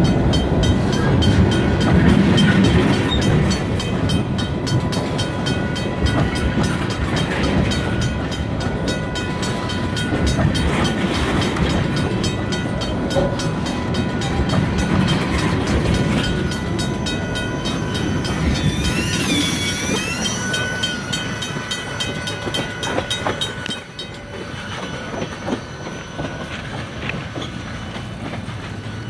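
Freight train rolling past, its wheels clicking rapidly over the rail joints, with a thin steady whine from the wheels. A brief wavering squeal comes about two-thirds of the way through, and the sound slowly fades.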